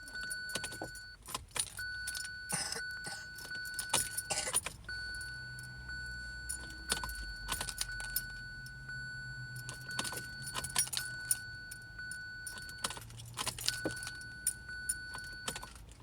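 Car ignition key being turned again and again in a 2017 Kia Sorento that will not start: keys jangle and the ignition clicks several times, while a steady electronic warning chime sounds, cutting off and starting again with each turn.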